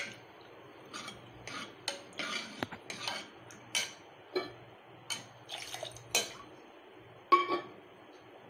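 Steel ladle stirring a watery dal-and-vegetable mix in a metal pressure cooker pot, with irregular light clinks and scrapes of the ladle against the pot.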